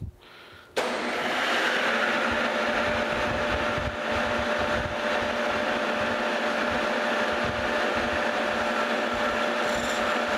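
A metal lathe switches on about a second in and runs steadily, its spindle and chuck spinning a turned steel pin, with a steady hum.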